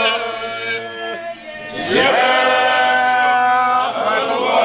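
A group of men singing together without instruments in long held notes. About two seconds in, the voices slide up into a louder sustained chord.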